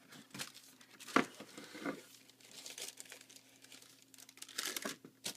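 Paper crinkling and rustling in irregular handfuls as sneakers are unpacked from their shoe box, with the loudest crackle about a second in.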